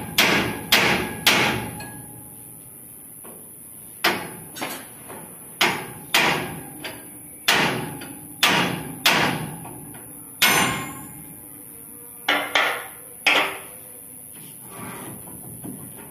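Hand hammer striking steel on a Swaraj 8100 combine harvester's threshing section: about fifteen sharp blows in irregular clusters with short pauses, each ringing briefly.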